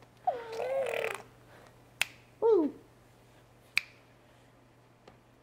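Two single sharp hand claps about two seconds apart, made by a parent clapping at a baby. Before them is a baby's vocal sound of about a second, and a short voice sound falling in pitch follows the first clap.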